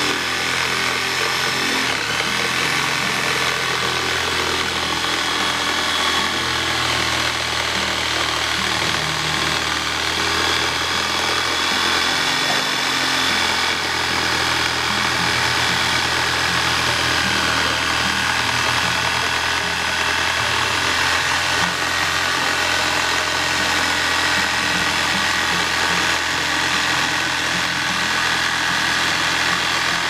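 Blue electric jigsaw running steadily with a high whine as it cuts around a car tyre's sidewall beside the steel wheel rim, to free the tyre from the wheel.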